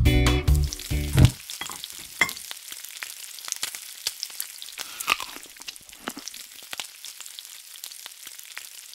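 Guitar background music stops about a second in. Then comes a soft, steady crackling sizzle of food frying in a pan, many small irregular pops.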